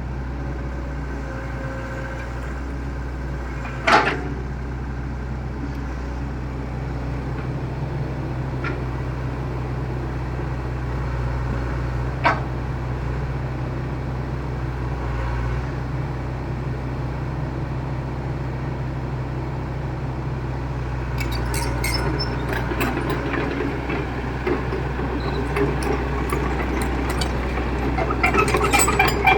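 Excavator's diesel engine running steadily. Two sharp knocks come about four and twelve seconds in, and a spell of crackling and rattling clicks fills the last several seconds.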